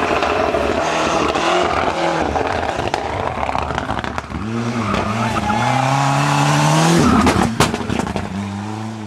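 Ford Sierra Cosworth Group A rally car's turbocharged Cosworth YB four-cylinder engine on a stage run: revs rise and fall through the bend, then the note climbs steadily under full acceleration to its loudest. About seven seconds in the driver lifts off and a few sharp bangs crack from the exhaust before the engine pulls again at lower revs.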